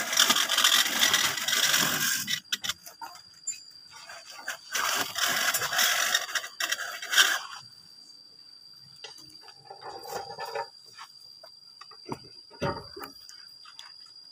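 Wooden profile template scraping along wet cement mortar, drawn by hand to shape a moulded ridge profile: a gritty scrape for about two seconds, a second longer pass from about five to seven and a half seconds, then scattered light knocks and taps.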